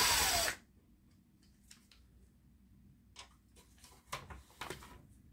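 Cordless power screwdriver running a screw out of a CRT monitor's metal shield, its motor pitch rising then falling before it stops about half a second in. After that come scattered light clicks and taps of the screw and metal parts being handled.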